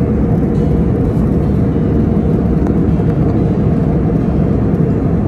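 Jet airliner cabin noise heard from a window seat: a steady, deep rush of engines and airflow, mostly low in pitch.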